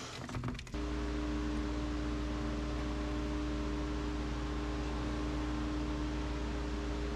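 A steady machine hum with an even hiss, made up of a deep drone and a few fixed tones, that comes in suddenly about a second in and holds unchanged.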